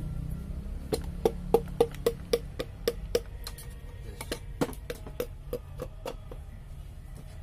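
Hammer handle tapping a piston down through a ring compressor into a cylinder bore of a Hyundai Atoz engine block. It makes a run of sharp knocks, about four a second, each with a short ring. The run starts about a second in, is hardest over the next two seconds, then goes on with lighter taps.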